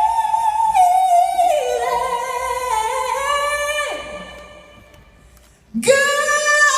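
A solo singer holding long sung notes with little or no backing, dying away about four seconds in, then coming back on a new loud held note near the end.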